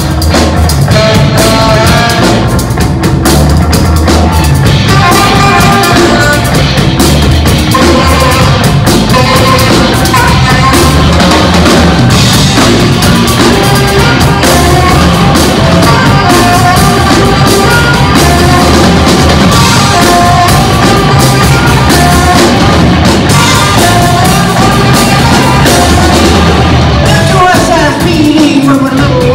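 Live rock band playing: saxophone, electric guitars and drum kit together, with a wavering lead melody over a heavy, steady low end and a falling slide near the end.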